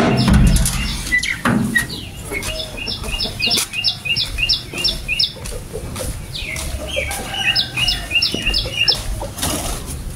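A small bird calling a quick series of sharp, falling chirps, about three a second, in two bouts. Underneath are camera handling noise and a few knocks, loudest at the start.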